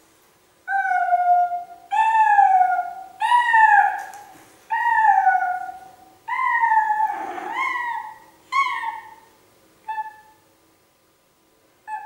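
Domestic cat yowling with a toy in its mouth: a series of about eight drawn-out calls, each rising then falling in pitch. The calls grow shorter and fainter near the end as the cat carries the toy away.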